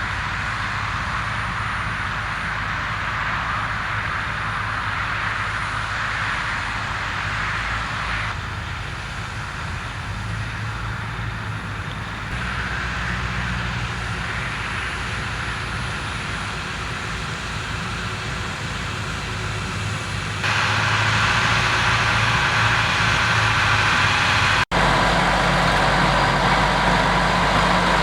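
Massey Ferguson diesel tractor engines running steadily under load in the field, the sound jumping abruptly several times and growing louder for the last several seconds.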